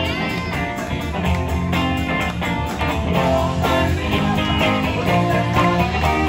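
Upbeat band music led by electric guitar over bass and a steady beat.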